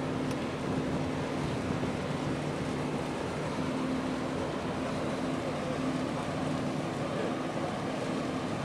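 Steady low drone of the container ship EVER LUCKY's engines and machinery as it passes close by, with a constant hum, over a steady wash of wind and water noise.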